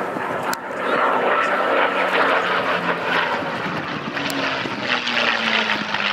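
P-51D Mustang's Packard Merlin V-12 engine and propeller running loud as the fighter flies close overhead, swelling about a second in, with the engine note dropping in pitch around the middle as it passes.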